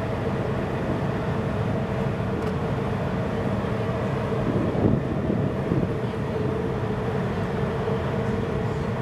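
Steady mechanical drone of dockside machinery beside a moored warship: a low rumble under a constant hum that does not change.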